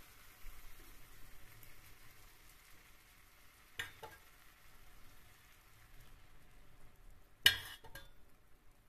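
Faint crackling sizzle of cold syrup soaking into hot şöbiyet pastries, thinning out about six seconds in. A couple of sharp knocks cut in, the loudest near the end.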